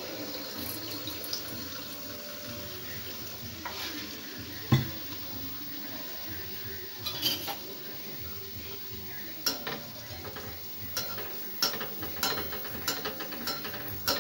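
A pua pitha of jaggery batter sizzling and bubbling as it deep-fries in hot oil in a metal kadai, with clinks and knocks of metal utensils against the pan, one sharp knock about five seconds in and more in the last few seconds.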